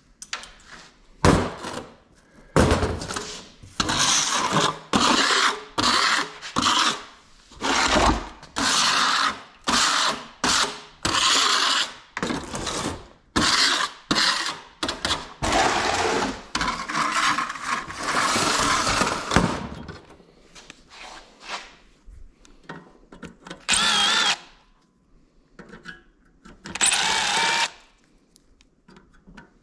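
Handheld power drill run in short bursts of about a second each, over and over, with a few sharp knocks in the first seconds. Near the end come two more bursts with a wavering motor whine.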